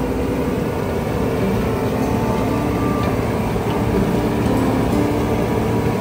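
Heavy harvesting machinery running steadily, a deep, continuous engine drone with a few steady tones over it.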